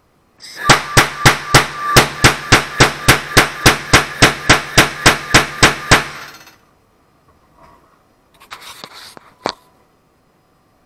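Propane noise cannon firing a rapid burst of about twenty sharp bangs, roughly three and a half a second, with a continuous hiss between the shots. It stops after about six seconds, followed by a few faint rustles and a single click.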